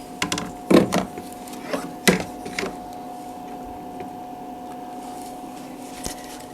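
A few knocks and clunks in the first three seconds as a fridge is closed back up, over a steady hum.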